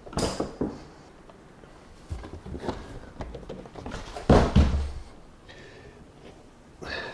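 A cardboard box thudding down a little over four seconds in, the loudest sound, with rustling and soft knocks from the thick padded fabric of a bite suit being handled before and after it.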